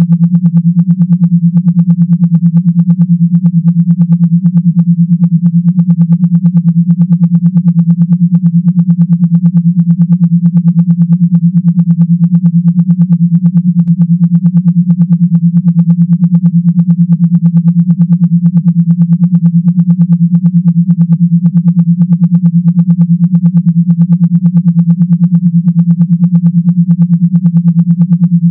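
Electronically generated low buzzing tone, pulsing rapidly and evenly without pause: a vibration sound made to shake a phone speaker.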